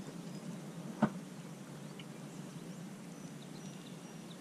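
Quiet outdoor ambience: steady low background noise with a few faint, short high chirps from distant birds, and one sharp click about a second in.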